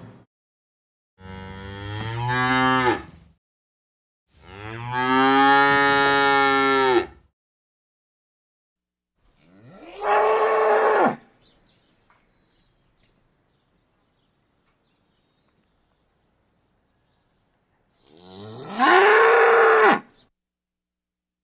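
Cattle mooing: four separate moos, each one to three seconds long. The second is the longest, and the last two rise and fall in pitch.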